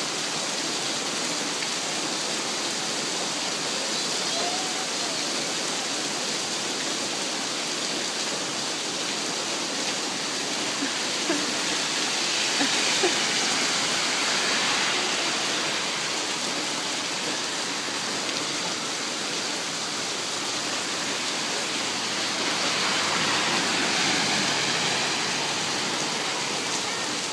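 Steady rain falling. About halfway through, the tyre hiss of a car passing on the wet street swells and fades, and a similar swell comes a few seconds before the end.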